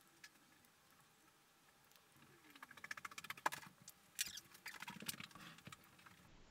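Faint, fast clicking and scratching of small 3D-printed plastic clock parts and a brass pin being worked together by hand. It starts about two seconds in and dies away after about five seconds.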